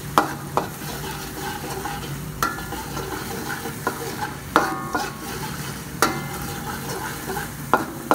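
Minced garlic sizzling in hot oil in a metal wok while a spatula stirs and scrapes it, with a sharp clank of the spatula against the wok about once a second. The garlic is being fried until it just turns golden.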